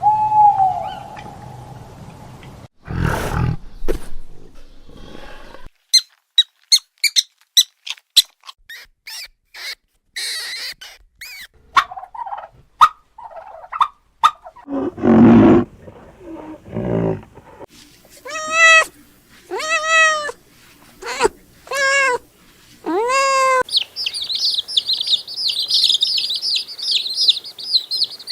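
A run of different animal calls played one after another: a quick series of clicks, a loud harsh call, several rising-and-falling pitched calls, and near the end a steady high chirping.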